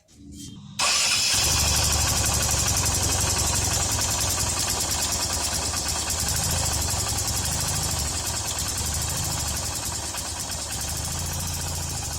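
Hero Honda CBZ Xtreme's single-cylinder four-stroke engine idling steadily, coming in suddenly about a second in, with a fast light ticking over it: the sound of loose valve tappets.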